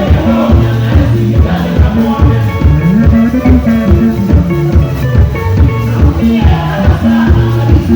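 Loud band music over a PA during a sound check: drum kit keeping a steady upbeat rhythm under a moving bass line and guitar.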